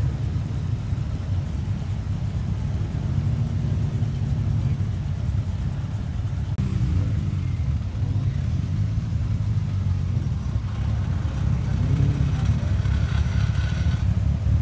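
Deep rumble of performance car engines rolling in slowly, with a few brief rises and falls in pitch as they are blipped. It grows a little louder near the end.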